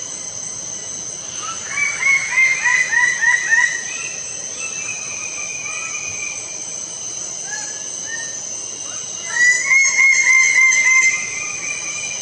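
Lesser bird of paradise calling: a fast run of about seven loud, harsh repeated notes about two seconds in, then a second run of loud repeated notes from about nine and a half to eleven seconds. A steady high-pitched hum runs underneath.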